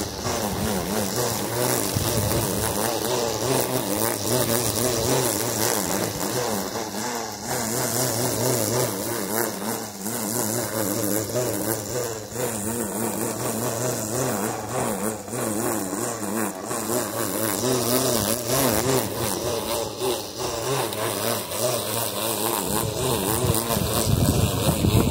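Corded electric string trimmer running, its motor whine wavering in pitch as the line cuts grass.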